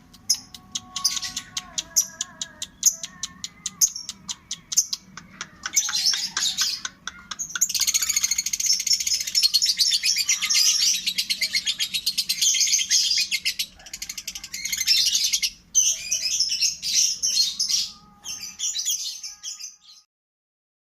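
Female lovebird's 'ngekek': a long, rapid, high chattering song. It opens with a fast run of clicks, then becomes a dense unbroken chatter for several seconds with a few short breaks, and stops abruptly just before the end.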